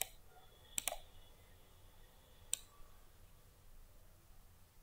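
Four sharp computer mouse clicks against quiet room tone: one at the start, a quick pair just under a second in, and one about two and a half seconds in.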